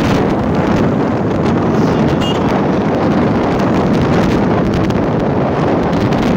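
Steady wind rushing over the microphone of a camera on a moving motorcycle, with the bike's engine and tyre noise mixed in underneath.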